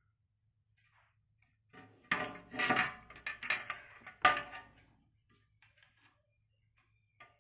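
Sections of a broken Daiwa fishing rod and its reel clattering as they are handled, with a cluster of knocks and rattles about two to five seconds in. The loudest knock comes a little past four seconds.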